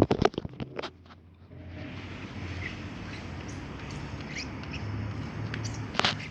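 Homemade slime being squeezed and stretched in the hands: a quick run of sharp wet clicks and pops in the first second, then scattered faint squeaks over a low steady hum, with one louder pop near the end.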